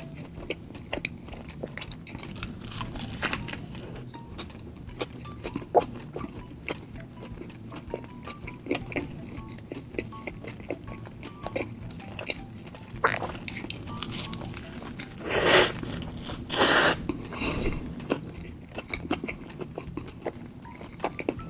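Close-miked chewing and biting of a McDonald's burger: many small wet mouth clicks. About three-quarters of the way through come two louder, harsher noisy bursts, each about half a second long.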